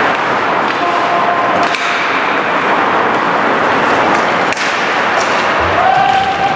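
Ice hockey play in a rink: a steady wash of skating and rink noise with several sharp cracks of sticks and puck, the clearest a couple of seconds apart.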